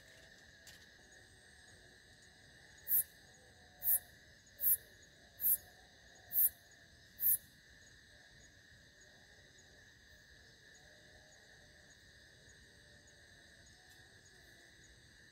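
Night-time chorus of crickets and other insects: a steady shrill trilling at several pitches. Six loud, very high-pitched chirps come about one a second, starting about three seconds in.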